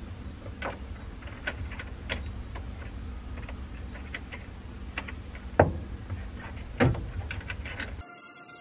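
Light metal clicks and clinks from a 1973 Chevrolet Camaro's hood latch assembly as its spring and catch are worked into place by hand, with two louder knocks past the middle. A low steady hum runs underneath.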